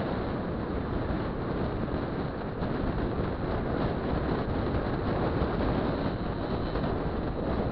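Steady rush of wind and road noise from riding at speed, with a small scooter engine running underneath. The sound stays even throughout with no clear pitch changes.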